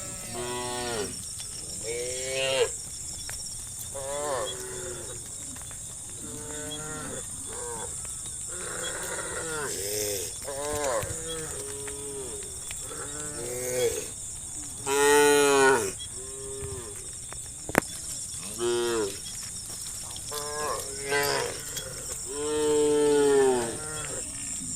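A herd of cattle mooing, one call after another, each rising and then falling in pitch, often overlapping; the loudest calls come about fifteen seconds in and near the end.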